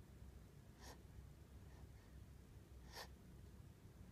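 Near silence with two short, faint breaths of a sleeping baby, about a second in and again near three seconds, over a low room hum.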